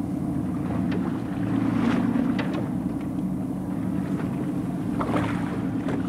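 Boat engine running steadily, a constant low hum, out on open sea.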